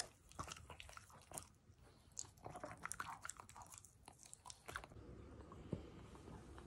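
French bulldog eating a treat from a hand: faint chewing and lip-smacking clicks that stop about five seconds in, leaving faint room tone.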